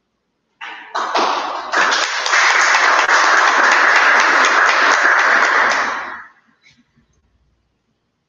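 A small group applauding: clapping starts about half a second in, swells quickly, holds steady and dies away about six seconds in.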